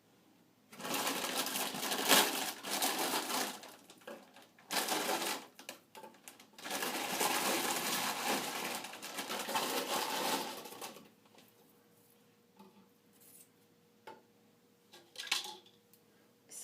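A wide comb scratching through coarse, kinky natural hair, in three spells of scratchy strokes with short pauses between, then a few brief rustles near the end.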